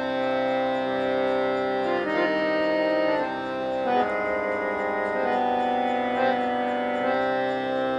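Electronic keyboard in an organ-like voice playing a slow phrase of long held notes that step from one pitch to the next every second or so, over a steady unbroken drone. It is the teacher's accompaniment of the alaap for the learner to sing along to.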